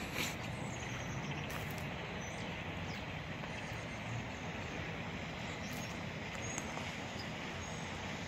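Steady distant rumble of traffic and industry with a low hum, and a few faint footsteps on concrete.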